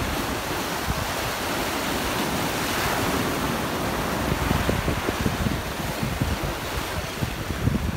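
Surf breaking and washing against the rocks of a jetty, a steady rushing wash, with wind buffeting the microphone.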